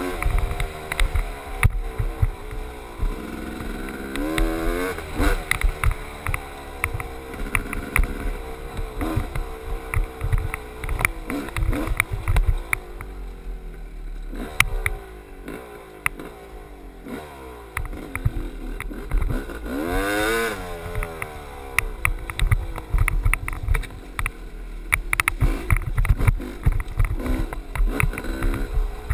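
GasGas dirt bike engine revving up and down again and again as it rides a rough trail. Frequent short knocks and rattles come from the bike crossing bumps.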